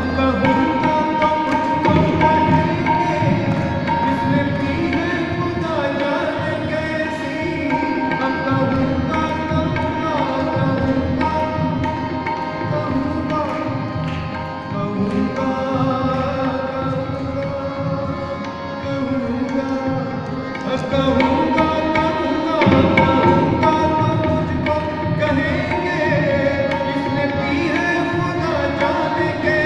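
Live harmonium and tabla music, with a man singing over it at times.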